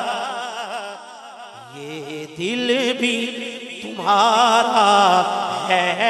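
A man singing a naat (Urdu devotional chant) into a microphone: long held notes with a wavering, ornamented pitch. The voice fades about a second in, a lower note comes in, and the singing returns strongly about four seconds in.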